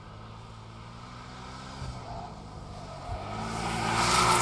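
Porsche 718 Boxster's turbocharged flat-four engine running as the car drives on a track, growing steadily louder over the last second and a half as it approaches.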